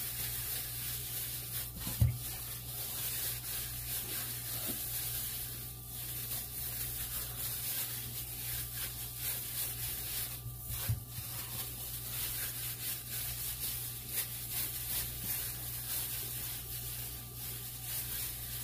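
Hands in disposable plastic gloves rubbing and kneading oiled, seasoned ribeye steaks, a steady rubbing sound over a low hum. A sharp thump about two seconds in and a lighter one about eleven seconds in.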